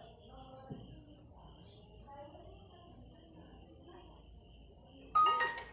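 Crickets chirping steadily: a high continuous insect trill with a faster pulsing chirp just below it. A louder voice breaks in near the end.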